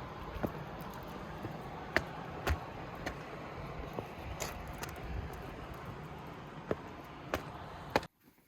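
Steady outdoor background noise, a hiss like distant traffic, with a few scattered sharp clicks. It cuts off abruptly near the end.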